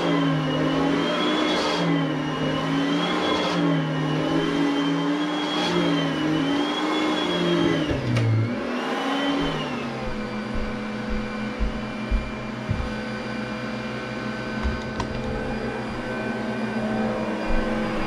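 Vacuum cleaner running while pushed back and forth over carpet, its motor pitch rising and falling with each stroke about every two seconds. About eight seconds in, the pitch dips and the motor settles into a steady hum.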